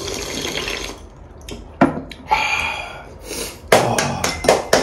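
A person slurping a milky drink straight from a bowl in two noisy draws, followed near the end by a quick run of sharp taps.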